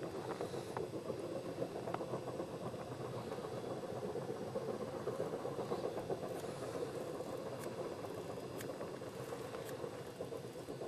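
Distant QJ 2-10-2 steam locomotive hauling a long freight train, its exhaust beats running together into a steady, rapid chuffing that fades slowly near the end.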